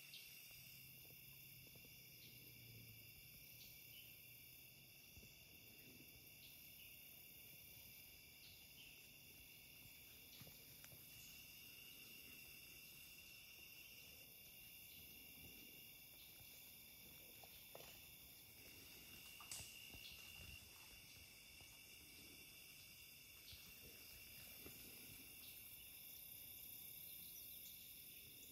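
Faint, steady chorus of crickets and other insects, a continuous high-pitched trilling.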